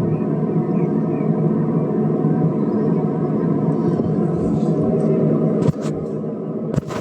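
Elementum Darmstadt Yugo exhaust fan running with a steady rushing hum. A little over five seconds in, a click and the fan drops to a quieter setting; near the end, another click and it drops again.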